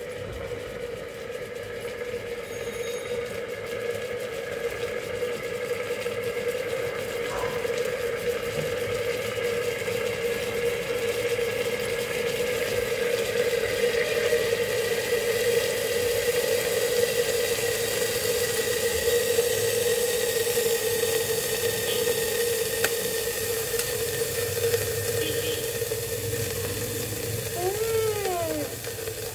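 Glass electric kettle heating water: a steady hiss and sizzle with a constant hum-like tone, growing louder over the first half or so as the water nears the boil.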